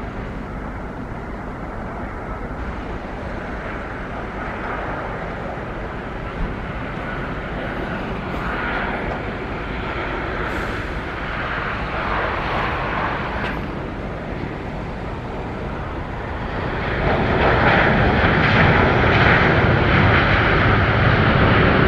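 Airliner engines running, a steady rushing noise that swells louder about three-quarters of the way through.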